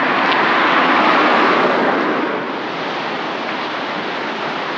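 A steady rush of running water, loudest in the first two seconds and then easing slightly.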